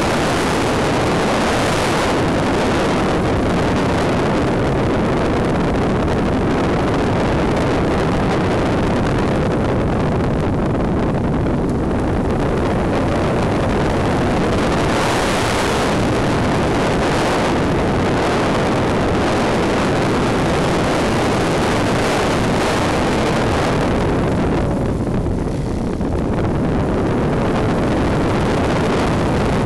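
Wind rushing over the on-board camera microphone of a Wot 4 RC model plane in flight, mixed with the plane's motor. It is loud and steady, with a brief dip in the hiss about 25 seconds in.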